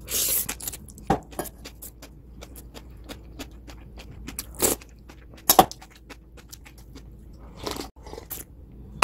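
Metal spoon clinking and scraping in a stainless steel mixing bowl of seasoned bean sprouts, and the bowl knocking against the countertop as it is moved: a scattered series of sharp clinks, the loudest just after the start and around the middle.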